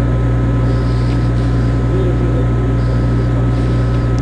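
Steady low drone of a ship's machinery, with a couple of faint, steady whining tones above it.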